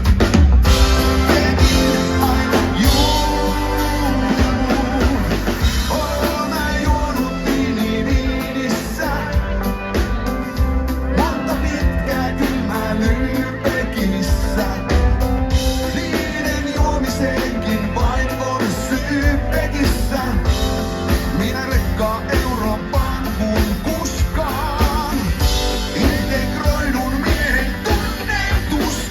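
Live rock-and-roll band playing with a lead singer, the band and voice running loud and unbroken.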